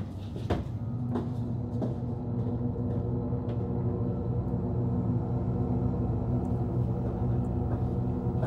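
Horror film soundtrack: a low, steady droning tone comes in about a second in and holds, with a few sharp knocks in the first two seconds.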